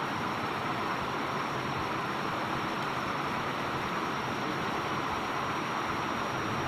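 Water pouring over a small concrete weir: a steady rushing noise.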